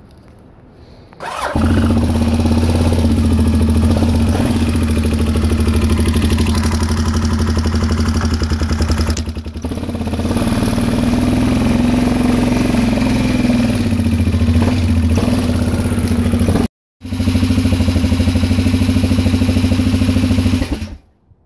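Honda Rincon 650 ATV's single-cylinder four-stroke engine starting up about a second and a half in, then running steadily at idle and low throttle as the quad is ridden. The sound breaks off briefly about three-quarters through and stops just before the end.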